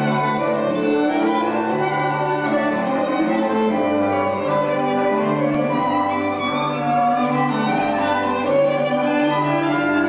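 Classical orchestral music led by bowed strings, with violins over a line of held low notes.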